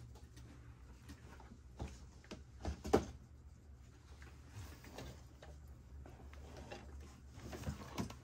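Hands handling small items and packaging on a tabletop: scattered light taps, clicks and knocks, the loudest about three seconds in, over a low steady hum.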